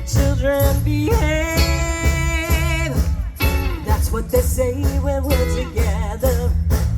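Live band playing a pop-rock song: a singer holding long, wavering notes over bass, guitar and a steady drum beat.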